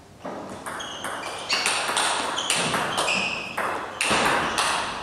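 Table tennis rally: the ball clicking sharply off the bats and bouncing on the table in quick alternation, two to three clicks a second, starting a moment in.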